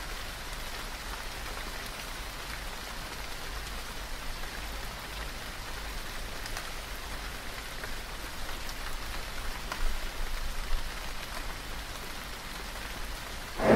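Rain falling steadily: an even hiss with scattered ticks of individual drops hitting surfaces.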